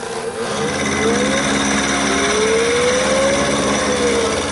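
Taig CNC micro mill cutting gray cast iron with a 3/16-inch carbide end mill: the spindle and cut run steadily while a whine from the axis drives rises and falls in pitch as the cutter follows the radius.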